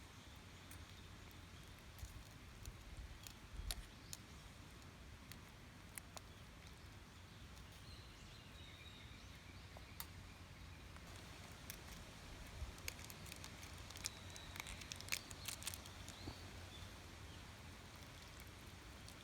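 Small wood fire crackling in a wood stove: scattered sharp pops and snaps, coming thicker toward the end.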